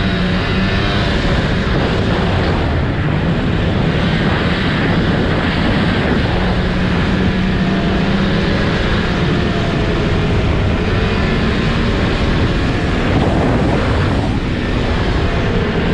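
Snowmobile engine running steadily at trail speed, its pitch wavering slightly up and down with the throttle.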